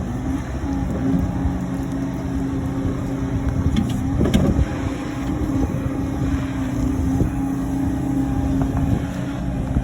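Bobcat skid-steer engine running steadily while the machine's bucket and drive are worked through the joysticks, with a brief louder clunk about four seconds in.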